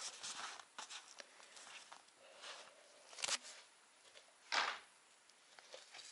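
Rustling of a cotton baby bodysuit being handled and smoothed out by hand, in short soft swishes, with a sharp tap just after three seconds and a louder swish about halfway through.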